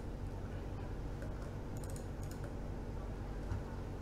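A few faint clicks of a computer mouse and keyboard, several close together about halfway through, over a steady low hum.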